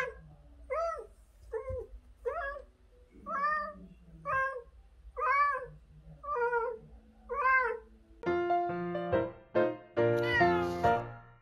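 A long-haired Siamese cat meowing over and over, about one short rising-and-falling meow a second. About eight seconds in, a bright music jingle takes over.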